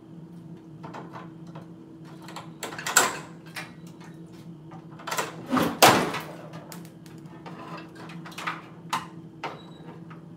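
Irregular clicks, knocks and rattles, a dozen or so scattered through, the loudest about three and six seconds in, over a faint steady low hum.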